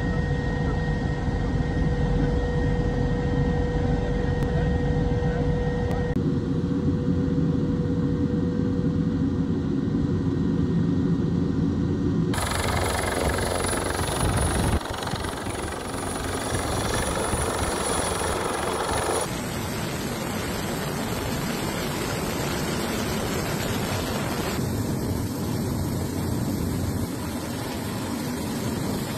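Helicopter turbine and rotor noise: a steady drone with a high whine at first, giving way to broader rushing noise. The sound changes abruptly several times.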